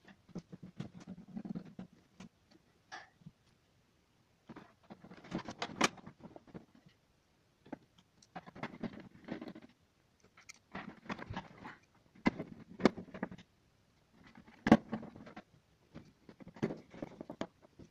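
Repeated short bursts of plastic clicking, scraping and knocking, every second or two, with a sharp knock about fifteen seconds in: an LED TV's plastic back cover being fitted and its screws driven in with a hand screwdriver.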